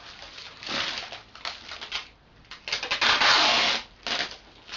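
Plastic wrapping rustling and crinkling as it is handled, then a long loud rip of adhesive tape pulled off its roll about three seconds in.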